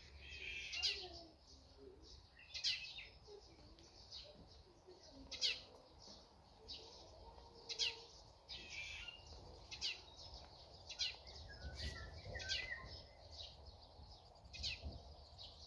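Wild birds singing, black-naped orioles among them: short sharp high chirps every two seconds or so, with some warbled phrases between.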